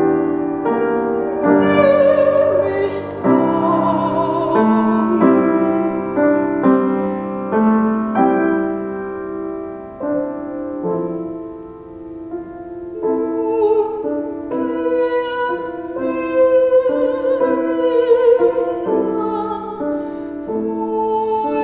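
Woman's classical voice singing a German art song with vibrato, accompanying herself on the piano. Near the middle the voice pauses for a short piano-only passage, then the singing resumes.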